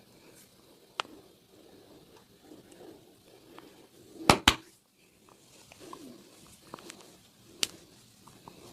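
Massage sounds: hands rubbing and kneading over skin and clothing, broken by sharp snaps. One comes about a second in, two loud ones follow close together about four seconds in, and another comes near the end, either hand slaps or joints cracking.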